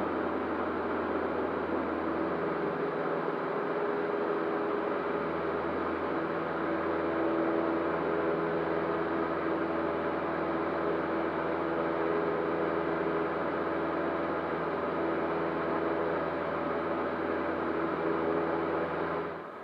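Cessna 152's Lycoming O-235 four-cylinder engine and propeller running steadily, a constant drone heard inside the cockpit. The level drops suddenly just before the end.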